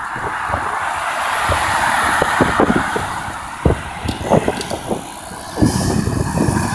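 Street traffic: a car passing, its tyre and engine noise swelling over the first few seconds and easing off about five seconds in, with a scatter of dull bumps on the phone's microphone.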